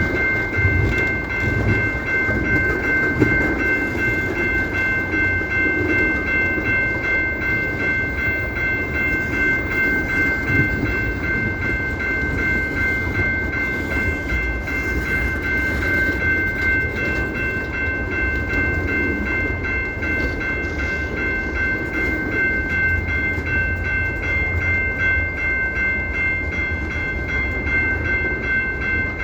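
Train running by with a steady rumble and a continuous high-pitched tone of several notes held throughout.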